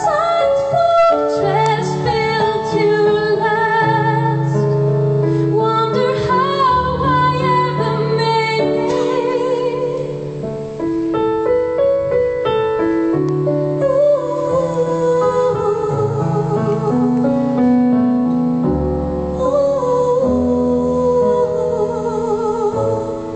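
A woman singing with vibrato over live piano accompaniment, recorded on a mobile phone. The music dies away right at the end.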